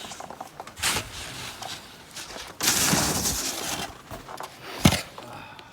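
Snow shovel scraping and crunching through deep snow in several strokes, the longest about two and a half seconds in, with a sharp knock near the end.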